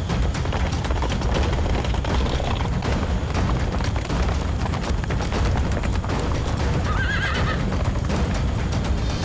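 Several horses galloping, their hoofbeats running on as a dense, uneven clatter. One horse whinnies briefly about seven seconds in.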